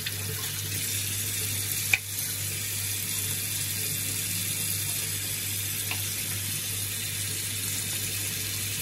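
Bathroom tap running steadily into a sink while a silicone facial cleansing brush is rinsed under the stream. There is a sharp click about two seconds in and a fainter one near six seconds.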